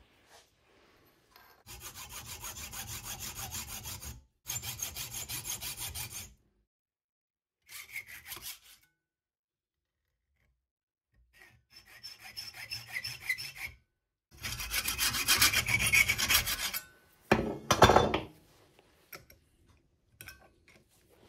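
Hand hacksaw cutting lengthwise along a metal tube clamped in a bench vise, rasping back and forth in several bursts with short pauses, slitting out a strip so the tube can be squeezed to a smaller diameter. Near the end there is a shorter, louder scrape.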